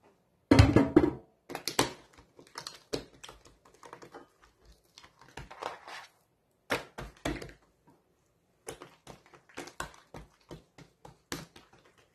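Hands working dough on a thin aluminium tray: irregular taps and knocks of palms and fingers against the metal, with a louder cluster of thumps about half a second in.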